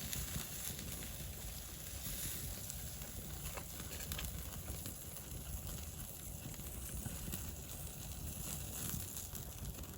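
Campfire crackling faintly, with a few sharp pops over a low steady rumble.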